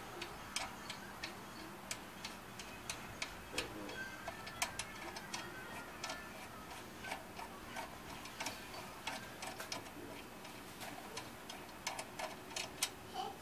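Ratchet wrench clicking as a rear brake caliper bolt is backed out: light, sharp clicks in short irregular runs, a few a second.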